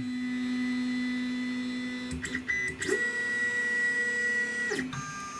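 Creality Ender 5 Plus 3D printer's stepper motors whining through an auto-home move: a steady low tone for about two seconds, a few clicks, then a higher tone that stops abruptly shortly before the end, followed by a brief high tone.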